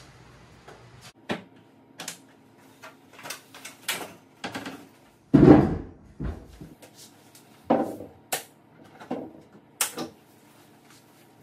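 Irregular knocks, taps and clunks from a wooden cabinet and tools being handled during installation, with one heavy thump about five seconds in as the loudest.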